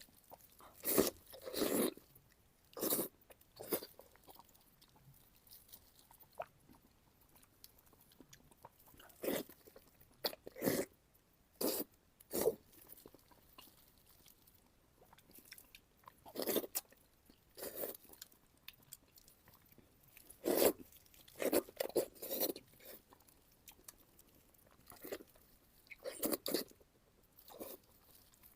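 Close-miked bites and chewing of fatty pork, heard as irregular short wet crunches with pauses of a few seconds between them.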